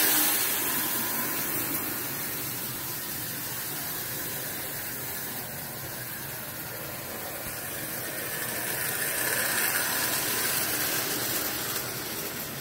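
A 1930s Marx M10000 tinplate streamliner toy train running on three-rail tin track under its electric motor, giving a steady whirring rattle. It is loudest as the train passes close by at the start, fades as it moves away, and swells again about nine seconds in.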